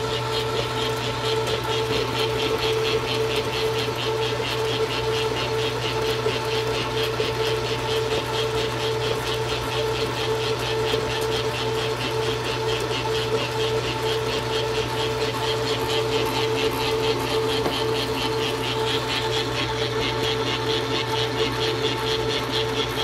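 Hobart N50 stand mixer running at a steady speed, its flat beater churning stiff cookie dough in the stainless steel bowl: an even motor hum with a steady higher tone over it.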